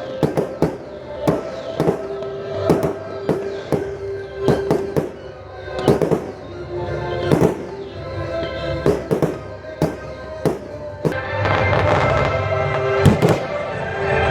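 Fireworks bursting in a quick run of sharp bangs, roughly one every half second to second, over music with held notes that fills out after about eleven seconds.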